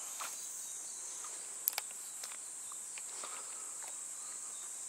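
Cicadas singing in a steady, high-pitched drone, with a few faint clicks, one sharper a little before the middle.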